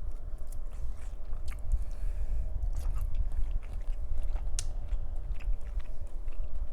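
Close-miked chewing of shrimp, with scattered wet mouth clicks and smacks over a low steady rumble.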